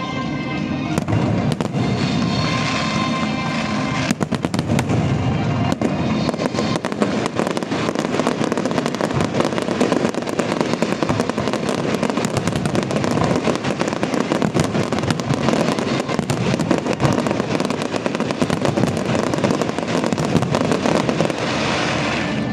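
Fireworks going off in a rapid, continuous barrage of bangs and crackles, growing denser from about four seconds in.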